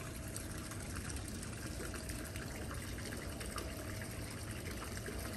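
Small fountain's water falling steadily from a wall spout into a shallow pool lined with river stones, a continuous splashing trickle.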